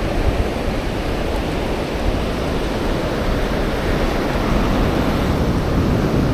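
Steady rushing noise of Atlantic surf on the beach.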